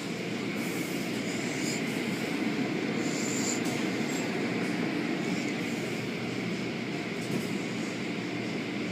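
Car wash machinery running: a steady rushing noise, strongest low down, that grows a little louder about a second in.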